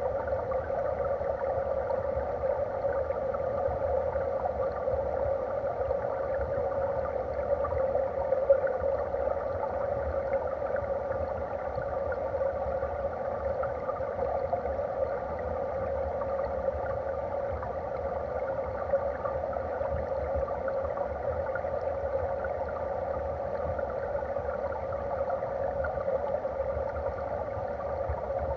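Steady, dull rushing of stream water heard through a camera submerged in the current, with a low rumble underneath.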